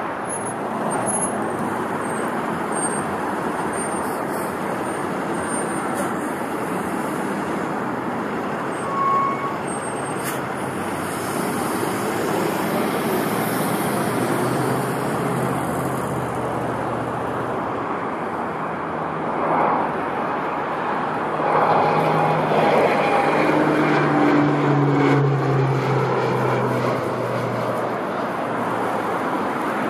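Steady road traffic noise. Around the twenty-second mark a heavy vehicle's engine note rises out of it and falls slightly in pitch as the vehicle passes.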